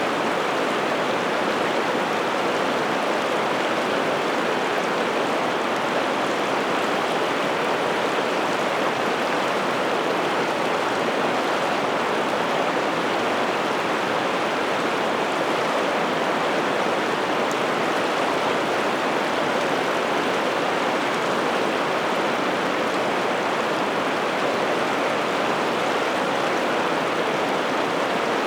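River water rushing over rapids, a steady, even roar of flowing water.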